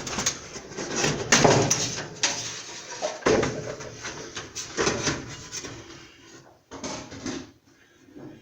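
Hands working wiring free of plastic clips inside an electric dryer: irregular clicks, scrapes and rattles, dying down near the end.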